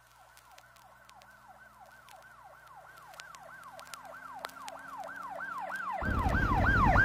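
A siren wailing in a quick, repeating rise and fall, about three cycles a second, fading in and growing steadily louder, with faint scattered clicks. About six seconds in, a loud low rumble comes in underneath.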